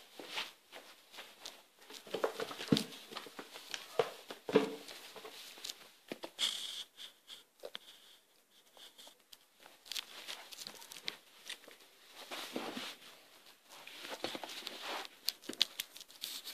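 Cocker spaniel puppy chewing and gnawing on a chew, irregular wet clicking and crackling from its teeth and mouth, with rustling on the carpet.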